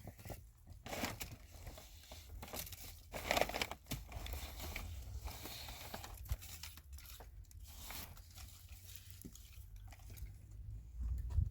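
Irregular rustling, crinkling and tearing noises of some material being handled, louder about a second in and again around three and a half seconds, over a steady low rumble.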